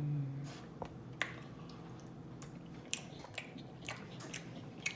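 A person chewing orange chicken dipped in teriyaki sauce, with irregular sharp mouth smacks and clicks. A short hummed "mm" comes right at the start.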